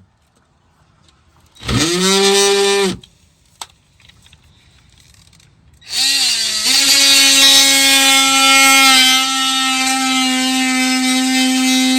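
Power drill motor run briefly, spinning up and stopping after about a second, then a click, then a longer steady run from about halfway on, driving the bracket bolts.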